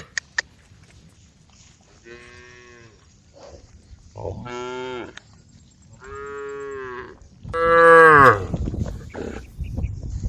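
Cows mooing: four separate calls of about a second each, the last and loudest about eight seconds in, calling to the herd. A low rumble follows the last call.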